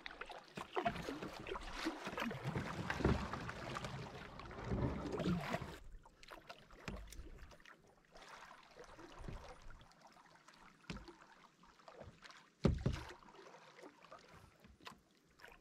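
Canoe being paddled on a calm creek: paddle strokes and splashing, busier for the first six seconds, then sparser strokes and drips, with one sharp knock about twelve and a half seconds in.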